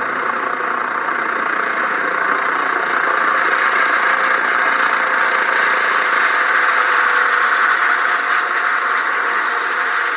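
Rescue helicopter flying close by: a loud, steady turbine-and-rotor noise with a thin high whine that drops slightly in pitch.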